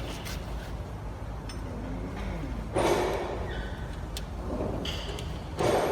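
Workshop noise: a steady low hum with two short, noisy scrapes or knocks, one about three seconds in and a louder one near the end, and faint voices in the background.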